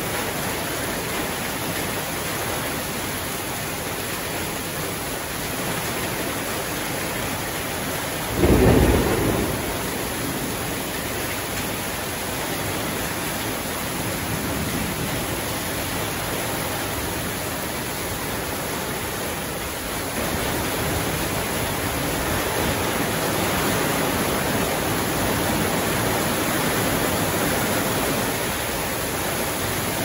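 Heavy tropical downpour pouring steadily, with a sudden loud clap of thunder about eight seconds in; the rain grows a little heavier about twenty seconds in.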